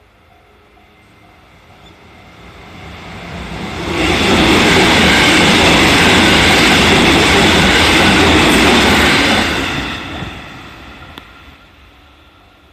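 A train passes at speed. The rumble of wheels on the rails grows as it approaches, stays loud for about five seconds as it goes by, then fades away.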